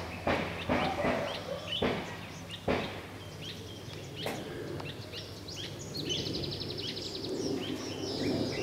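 Wild birds chirping, with a fast trill about six to seven seconds in. A few knocks sound in the first three seconds, and a low steady hum runs underneath.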